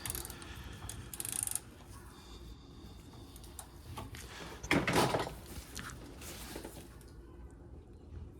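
Hand tools working on a car's inner tie rod: short metal scrapes and clunks of a wrench being levered against a tight fitting, with a louder knock about five seconds in.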